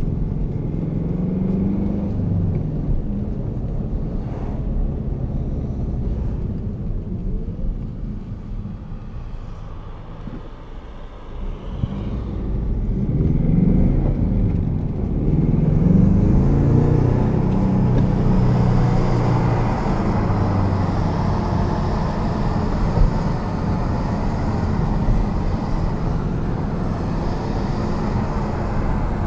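Ford Mustang EcoBoost's turbocharged 2.3-litre four-cylinder engine heard from inside the cabin while driving, its note rising and falling with the revs. It eases off and goes quieter about a third of the way through, then picks up again and holds at a louder cruise, with tyre and wind noise growing.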